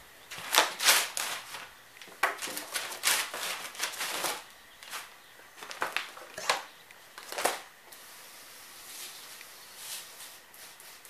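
Short, irregular bursts of rustling and clatter for the first seven seconds or so, then a pump-up sprayer putting out a steady soft hiss as it sprays concrete stain onto a textured overlay.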